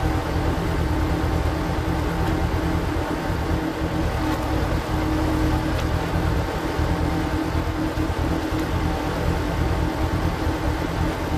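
Power tiller engine running steadily under load, driving a screw-cone log splitter through oak firewood.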